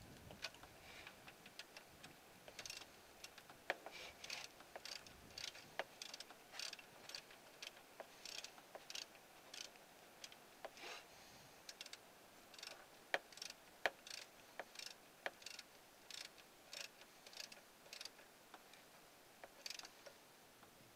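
Ratchet wrench with a 10 mm socket clicking faintly in quick runs of ticks while tightening the thermostat housing bolts, with a few sharper single metal clicks.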